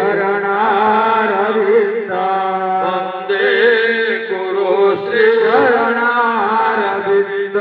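A man singing a devotional chant into a microphone, the melody gliding and ornamented over a steady held drone.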